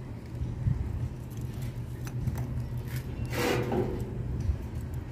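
Charcoal lumps clinking and scraping as they are shifted by hand in a steel barbecue drum, a few light clicks, over a steady low rumble. About three seconds in comes a short, louder hissing scrape.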